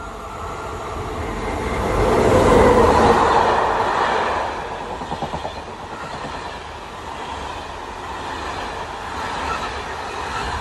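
SNCF Intercités de Nuit train of Corail coaches passing close by. The noise swells to its loudest a few seconds in as the front of the train goes past, then settles into the steady rolling of coach wheels on the rails, with a short rhythmic clatter of wheels over rail joints about five seconds in.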